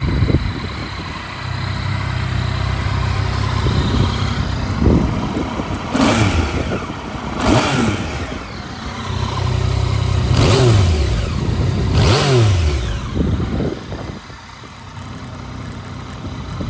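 Yamaha Tracer 900's 847 cc three-cylinder engine idling in neutral, with the throttle blipped several times so the revs rise and fall sharply; the clearest blips come about six, seven and a half, ten and a half and twelve seconds in. Near the end it settles back to a quieter idle.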